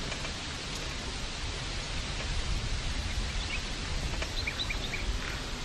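Outdoor garden ambience: a steady hiss of background noise, with a few short bird chirps in the second half.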